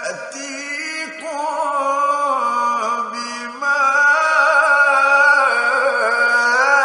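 A male reciter chanting the Quran in long, melodic held phrases with ornamented turns of pitch. The voice grows louder a little past halfway.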